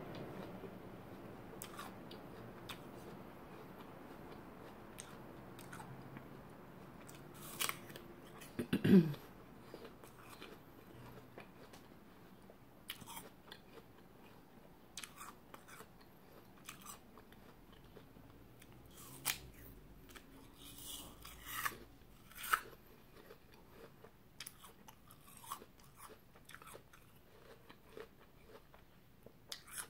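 A person biting and chewing a crisp raw apple slice close to the microphone, with scattered crunches and mouth clicks. About nine seconds in there is a short voiced sound that falls in pitch, the loudest moment.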